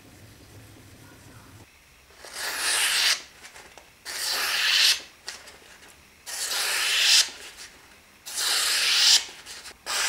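Freshly sharpened plane blade, forged from truck leaf-spring steel, slicing through a hand-held sheet of paper to test its edge: four hissing cuts, each about a second long and growing louder as it goes, about two seconds apart, with a fifth starting at the end.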